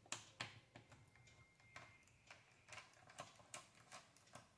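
Faint, irregular light clicks of a small screwdriver working the back-panel screws out of an Acer laptop, about a dozen ticks at uneven intervals.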